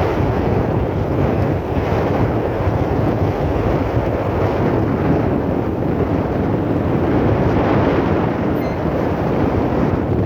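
Strong sea wind buffeting the microphone in a steady, loud rush, with no clear engine tone or rhythm.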